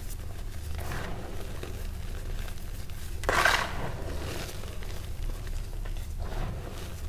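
Hands squeezing and scooping loose powdered gym chalk, giving soft crumbly rustles. One louder rush comes about three seconds in as a big handful is lifted and crushed. A steady low hum runs underneath.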